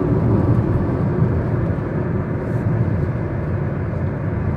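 Steady tyre and engine noise heard from inside the cabin of a moving car.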